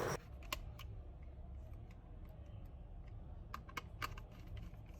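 Faint, scattered small clicks and taps of a screwdriver and the metal drive caddy as the caddy screws are tightened onto a 2.5-inch SSD, a couple near the start and a quick run of them past three seconds in.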